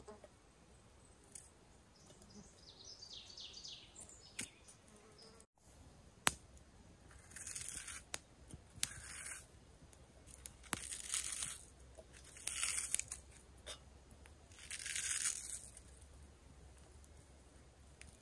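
A knife cutting and peeling vegetables by hand, potato and onion, over a cup: a few sharp clicks, then about five raspy scraping passes, each about a second long. A faint run of short descending chirps sounds a few seconds in.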